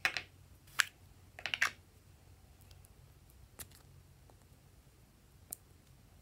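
Several sharp plastic clicks bunched in the first two seconds as a small egg-shaped plastic makeup pot is handled and its lid opened, followed by two faint ticks of a plastic spatula against the pot.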